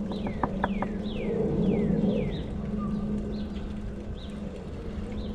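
Birds chirping: a string of short notes, each sliding downward in pitch, coming every half second or so, over a steady low hum.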